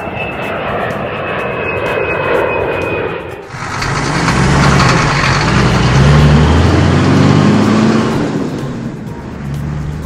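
A cartoon vehicle's engine sound effect running. About three and a half seconds in it turns suddenly louder, with a low pitch that steps up and down.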